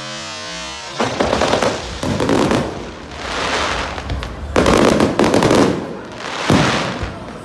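Fireworks going off: bouts of rapid crackling that start about a second in and come every second or so, with one sharp bang near the end.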